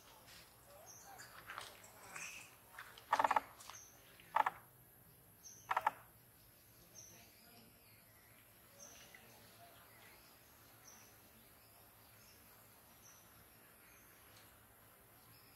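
Forest wildlife ambience: a short high chirp repeating about once a second, with three louder short animal calls in the first half.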